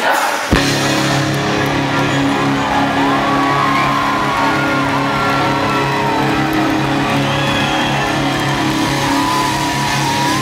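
Live country-rock band playing a chord that starts suddenly about half a second in and is held steadily, with audience whistles and whoops over it.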